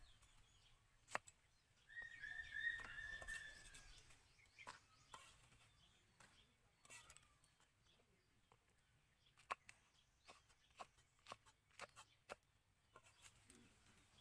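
Near silence broken by faint knife clicks and taps on a wooden chopping board, most of them in a quick scatter after the middle. A short bird chirp sounds about two seconds in.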